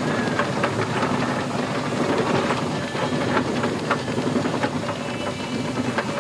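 Steam traction engine running: a steady hiss of steam over a low hum, with irregular metallic clicks and knocks.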